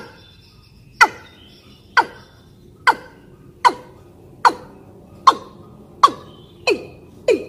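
Female watercock calls played as a hunting lure: a breeding female's call that draws males. It is a series of about ten sharp notes, each sliding quickly down in pitch, about one a second, coming a little faster near the end.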